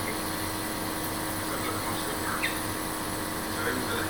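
Compressor nebulizer running with a steady mechanical hum, misting a dose of Pulmicort through an infant face mask.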